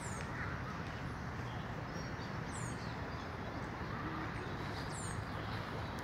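Short, high, thin calls in falling pairs from a small animal, three times about two and a half seconds apart, over a steady low background rumble.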